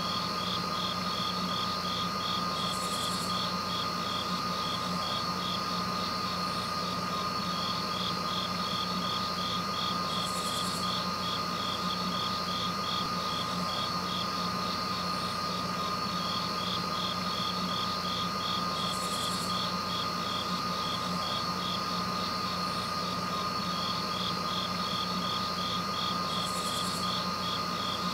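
A steady droning hum with a held tone, over which a rapid, even chirping pulse runs, like night insects. A brief high hiss comes back about every eight seconds.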